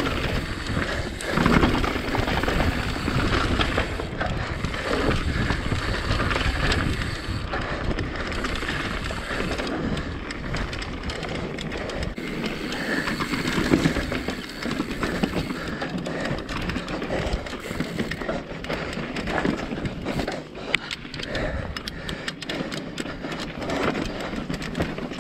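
Mountain bike riding over a rough, rocky trail: a steady rush of tyre and trail noise with frequent rattling knocks from the bike.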